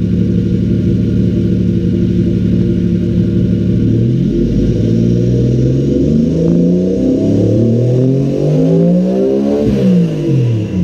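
Turbocharged Toyota 1JZ VVTi inline-six swapped into a Nissan 240SX, idling steadily, then revved from about four seconds in, climbing in pitch to a peak and dropping back near the end.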